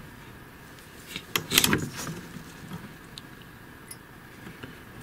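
Brief clatter of clicks and rattling from handling an induction cooktop's circuit board and steel tweezers, about one and a half seconds in, otherwise only quiet room background.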